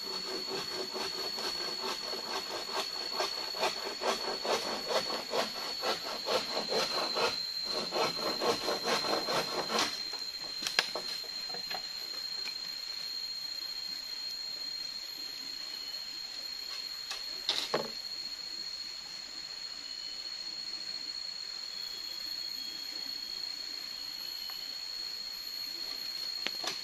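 Dry sticks and brush being handled at a small campfire that is being built up for embers: a fast, loud crackling rustle for about the first ten seconds, then a few sharp knocks. A steady high-pitched buzz runs throughout.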